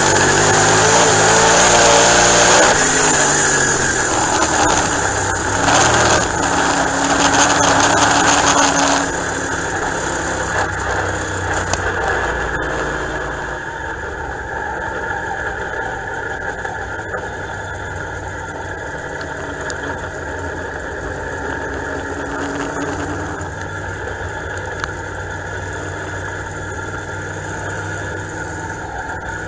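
Dirt-track race car engine heard from inside the cockpit. Its revs fall over the first few seconds, it stays loud for about nine seconds, then drops to a steady, quieter low-rev running as the car rolls slowly.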